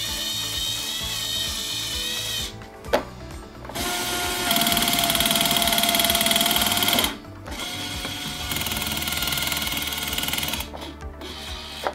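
Toy claw machine's small electric motor whirring as the claw moves, with a click about three seconds in and its loudest steady whine around the middle, over tinny toy music.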